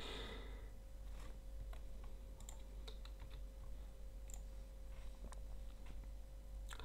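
Faint, irregular clicks, about a dozen, over a steady low hum and room tone.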